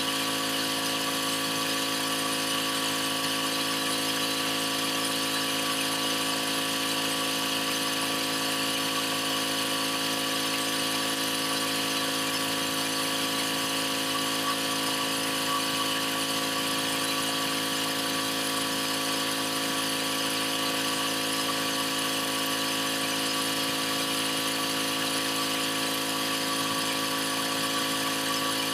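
Pressure washer running steadily: an unchanging engine drone with a constant hiss of high-pressure water spray.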